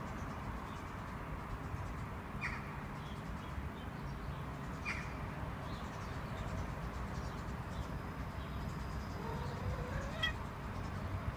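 Tom cat giving a soft rising trill, a courting call, about nine seconds in, over steady outdoor background noise. Two brief high chirps come earlier.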